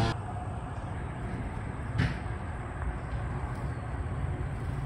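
Steady low outdoor background rumble, with a single short click about two seconds in.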